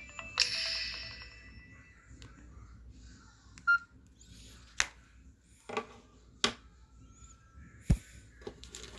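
The end of the AT&T Firefly phone ringtone: a last bright chime note about half a second in, fading out over about a second. Then a string of sharp clicks and taps from a handset being handled, one with a dull thump near the end.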